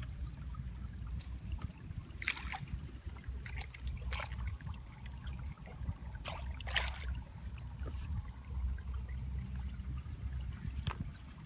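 Water trickling and sloshing, with a few short splashes, over a steady low rumble.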